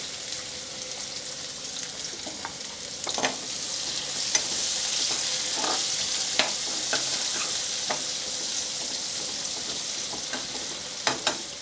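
Chopped onion sizzling in hot oil in a metal kadhai, frying toward golden, with a steel spoon stirring and scraping against the pan in short clicks. The sizzle grows louder about three seconds in.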